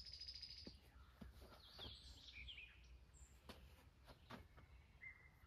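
Near silence with faint bird chirps and a few soft clicks over a low background hum.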